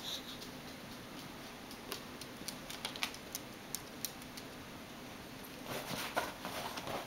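Scattered light clicks and taps, then about six seconds in a flurry of scrabbling as a Cairn terrier puppy jumps up and paws at the side of a fabric sofa.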